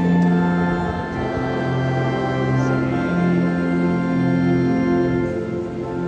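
Organ playing slow, sustained chords, the held notes changing every second or two.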